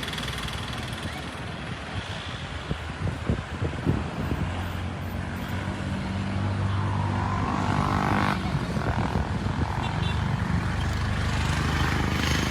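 A motor vehicle's engine running steadily, growing louder from about halfway through, with a brief rise in pitch around eight seconds in.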